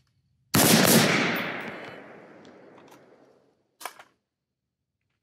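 AR-style carbine gunfire: a quick burst of overlapping shots about half a second in, echoing and dying away over about three seconds. Near the end come two more shots a split second apart.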